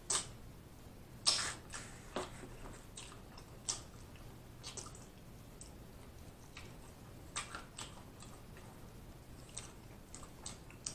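Close-miked mouth sounds: scattered wet smacks and sucking as fingers sticky with wing sauce are licked clean, with some chewing, a louder smack about a second in.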